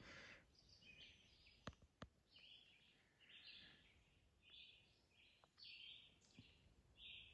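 Faint songbird singing: a string of short high chirpy phrases, about one a second, with two light clicks near the start.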